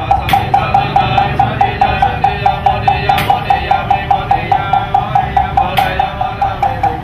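A wooden fish (mõ) is struck in a steady, even beat of about four knocks a second, which keeps time for Buddhist funeral chanting. A sharper, brighter strike cuts in every two to three seconds.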